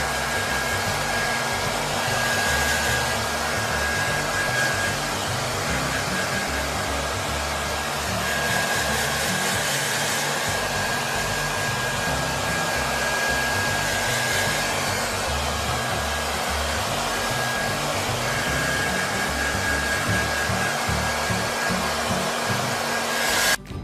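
Steady whirring and rushing of a small electric appliance motor, with a thin high whine held throughout, cutting off suddenly near the end.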